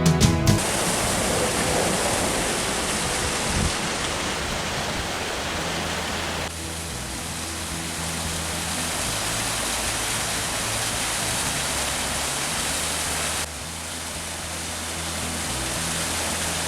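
Waterfall rushing: a steady, even wash of falling water over rocks. The level steps down abruptly twice, about six and thirteen seconds in.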